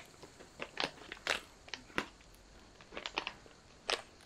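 Small plastic food pouch crinkling in the hands in short, irregular crackles as it is gripped and pulled at to tear open its top. The pouch is slippery and does not tear cleanly.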